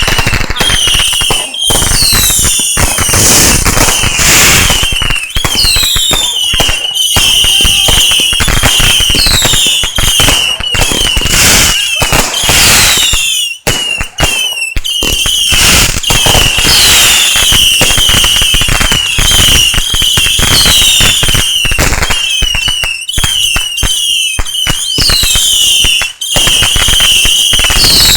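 Consumer fireworks going off without a break: dense crackling over many short, repeated whistles, about one a second, with a couple of brief lulls near the middle.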